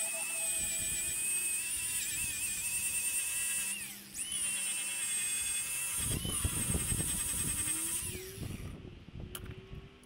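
Cordless angle grinder spinning with a steady high whine that dips about 4 s in and picks up again, then grinding against metal from about 6 s with a coarse rasping noise before spinning down near the end.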